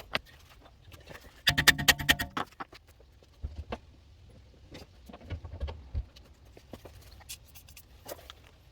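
Scattered clicks and metallic knocks of hand tools and brake parts being handled, with a rapid, ringing rattle lasting about a second, about one and a half seconds in.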